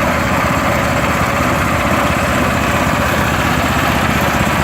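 Snowblower's small gasoline engine idling steadily, the auger still turning at idle through its centrifugal clutch.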